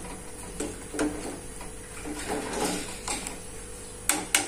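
Metal spoon stirring vegetable soup in an aluminium stockpot, with light scrapes and knocks against the pot, then two sharp metal clinks near the end.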